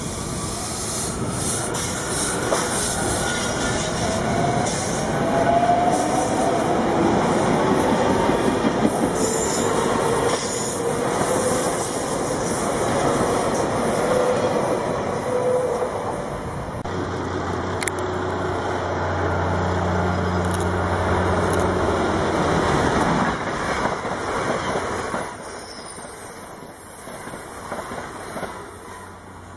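A SEPTA Silverliner electric multiple-unit commuter train runs by close at speed, its wheels rumbling and clattering on the rails. Whining tones slide up and down in pitch as it passes. A steady low hum comes in about two-thirds of the way through, then the sound fades as the last car clears.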